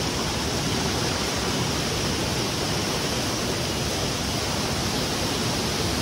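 Rain-swollen hill stream rushing fast over rocks as muddy white water, an even, unbroken rush.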